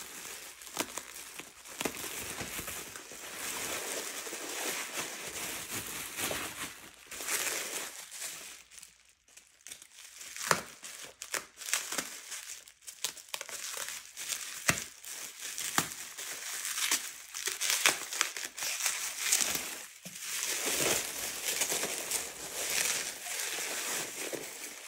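Plastic bubble wrap being unwrapped and crumpled by hand: continuous crinkling dotted with sharp crackles, with a brief lull about nine seconds in.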